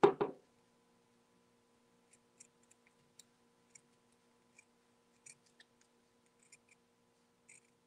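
Scissors cutting through two pinned layers of felt: a scatter of faint, short snips, with a louder knock right at the start.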